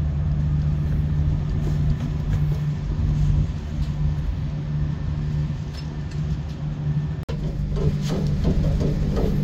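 Ship's machinery running with a steady low hum. The hum shifts to a slightly different pitch about seven seconds in.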